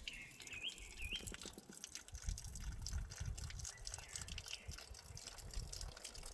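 Water dripping and trickling, with a bird chirping a few quick rising notes in the first second.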